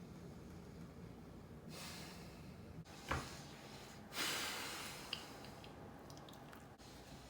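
A man's heavy breathing: a few slow, noisy breaths, the loudest starting about four seconds in.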